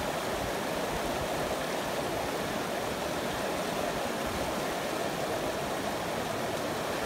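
A fast, shallow mountain creek rushing over rocks and rapids: a steady, even noise of running water.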